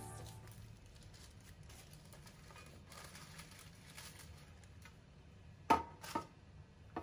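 Baking paper rustling faintly as it is pressed and smoothed into a metal baking pan, then two sharp knocks, about half a second apart near the end, as the pan is set on the counter.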